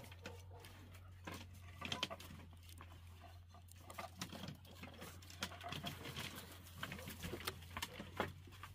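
Irregular light clicks and taps, a few of them sharper knocks, over a steady low hum.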